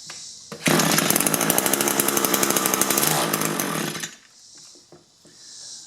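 Two-stroke string trimmer engine starts about half a second in, runs at a fast rattling rate for about three and a half seconds, then cuts out abruptly. The trimmer runs only on choke and dies without it.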